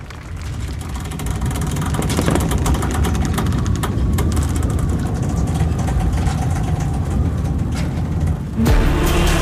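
Fireworks barrage: a steady low rumble of shell bursts with many sharp crackles, building over the first two seconds. Music comes in near the end.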